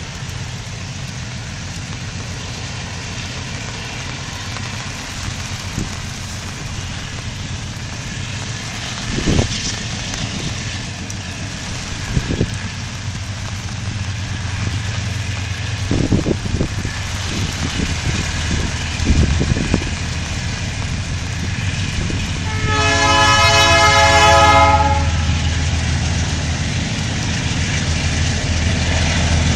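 GE C-26 diesel locomotives of an approaching empty freight train: a low engine rumble that grows louder, with one horn blast about two seconds long just over twenty seconds in, the loudest sound. Beneath it runs a steady hiss of rain, with a few dull thumps earlier on.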